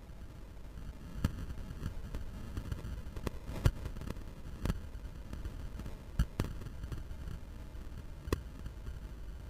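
Footsteps on the rusty steel plates of an old railway truss bridge deck: about seven sharp, irregularly spaced knocks over a low steady rumble.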